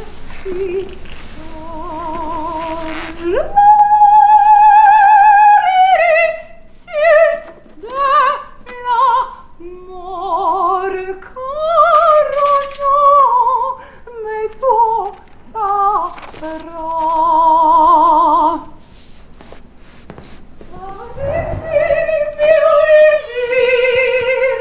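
A soprano voice singing opera. She holds long, high notes with a wide vibrato, with a big upward leap to a sustained top note about three seconds in, then shorter phrases.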